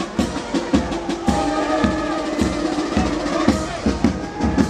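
Band music: a steady drumbeat under held melody notes.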